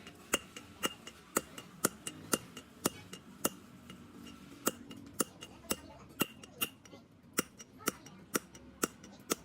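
Light metal-on-metal taps, about two a second, each sharp with a short ringing tail.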